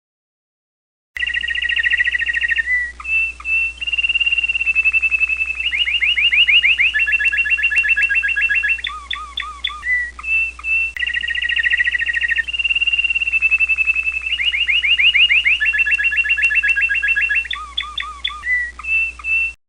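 American Singer canary singing a continuous song of fast rolling trills, held whistled notes and short repeated chirps, its varied ornamentation. It starts about a second in, and the same run of phrases comes round twice.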